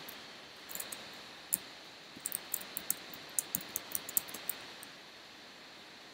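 Keys tapped on a computer keyboard while a password is typed at a Terminal prompt: about fourteen quick, irregular key clicks that stop about a second before the end, over a faint steady hiss.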